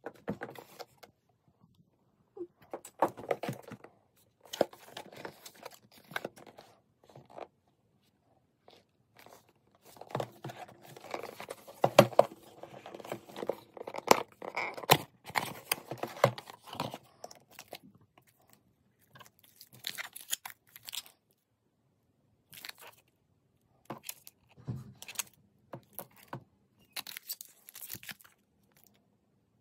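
Cardboard box and plastic wrap being handled and opened: scattered rustling, scraping and crinkling in short bursts with quiet pauses between, and a few sharp clicks.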